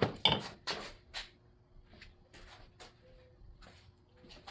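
A few sharp clicks and knocks from the plastic air intake parts being slid off and handled in the first second and a half, then faint handling ticks.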